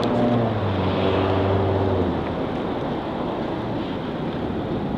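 Road traffic: a vehicle's engine hum fades out about two seconds in, over a steady rush of passing traffic.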